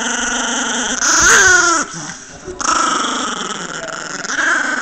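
Chihuahua growling in long drawn-out growls, with a louder rising-and-falling snarl about a second in, a brief pause, then another long growl. It is guarding the pasta box it holds in its mouth.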